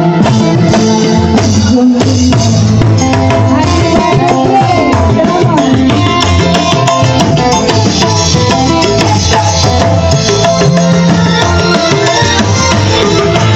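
Live band music played very loud, with a busy hand-drum rhythm, electric guitar and a melody line running over it.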